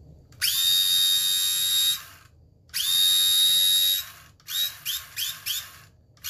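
Vintage 1978 Kenner Star Wars laser pistol toy firing: its small motor rubs a nylon strip, giving a high, buzzing whine that sweeps up at each trigger pull and then holds. Two long shots of about a second and a half each, then four short quick ones.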